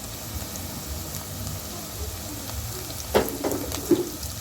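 Chopped onions and ginger frying in hot cooking oil in a pot, a steady sizzle. Two sharp knocks against the pot come about three and four seconds in.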